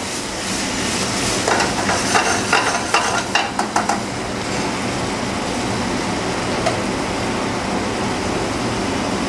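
Mixed vegetables sizzling in butter in a steel sauté pan, with a metal ladle clattering and scraping against the pan in quick strokes from about one and a half seconds in to about four seconds in. After that the sizzling goes on steadily over a low hum.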